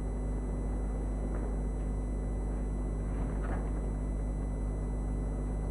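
Steady low hum and hiss of an old TV recording, with a few faint, brief sounds and no speech.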